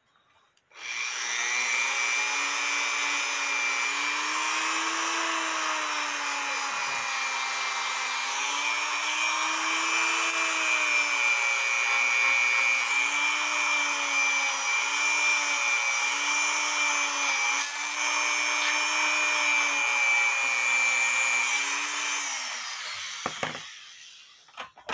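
Dremel rotary tool running at high speed with a polishing disc held against a cuckoo clock movement part. Its whine wavers slightly in pitch as the disc is pressed on. It starts about a second in and winds down near the end.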